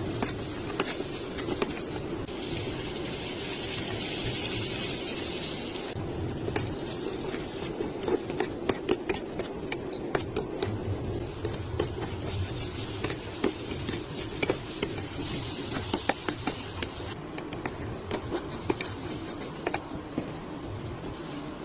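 Cooking in a pot: a spoon stirring and clicking against the pot, with a hiss of sizzling twice.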